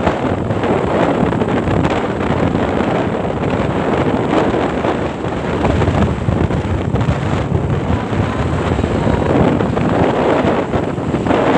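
Wind buffeting the microphone of a moving motorcycle: a steady, loud rushing rumble mixed with road noise.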